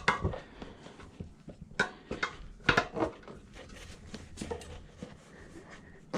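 Metal tire spoons clinking and scraping against the wheel rim as a stubborn rear tire is pried off. Scattered sharp knocks, the loudest about two and three seconds in.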